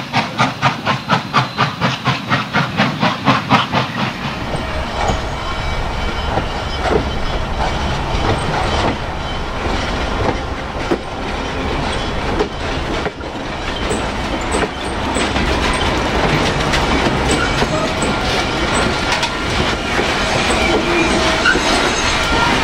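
Norfolk and Western 611, a J-class 4-8-4 steam locomotive, working hard, its exhaust chuffing in a quick even beat of about four or five a second. About four seconds in this gives way to the train rolling close past: a steady rumble with wheels clicking over the rail joints.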